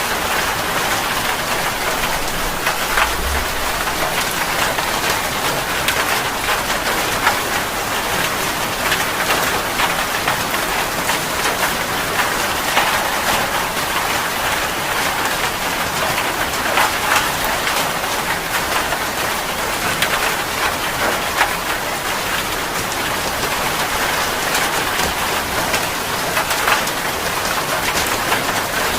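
Steady heavy rain falling, a dense even hiss with individual drops pattering through it.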